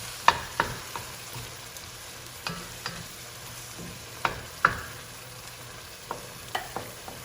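Browned beef and sausage sizzling in a hot Dutch oven as tomato sauce goes in, with sharp metal knocks in pairs about every two seconds, four times.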